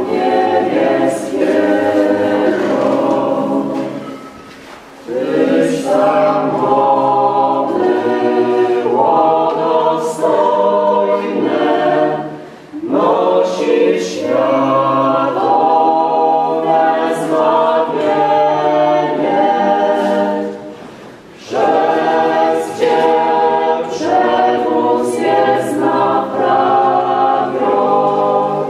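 Church choir singing a Polish hymn in long sung phrases, with brief breaks between phrases about 5, 13 and 21 seconds in.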